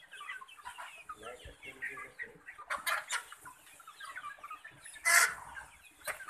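A flock of chickens clucking and calling over one another, many short overlapping calls, with a short loud burst about five seconds in.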